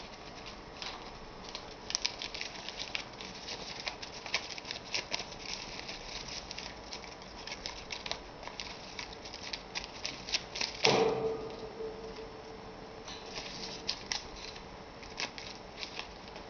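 Rainbow lorikeet crumpling and tearing a piece of paper with its beak: a steady run of paper crackles and rustles. About eleven seconds in comes one loud sharp sound, followed by a steady low hum lasting a couple of seconds.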